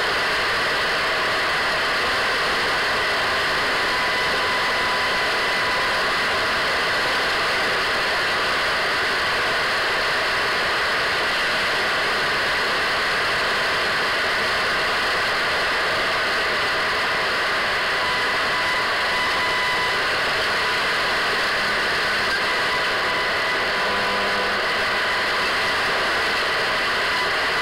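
Radio static: a steady, even hiss with faint whistling tones in it.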